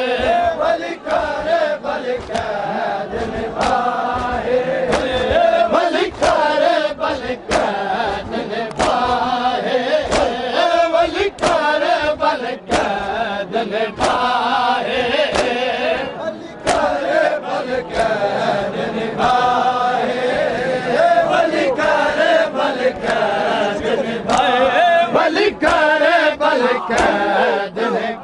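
A group of Shia mourners chanting a noha lament in unison, with sharp slaps of hands beating on bare chests (matam) in a steady beat about once a second.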